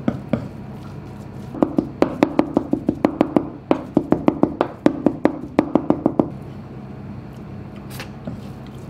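Kitchen knife chopping minced Pacific saury with green onion and grated ginger on a plastic cutting board: a rapid run of knocks, about five a second, with a brief break in the middle. The chopping starts a second and a half in and stops about six seconds in. The chopping works the seasonings into the fish mince.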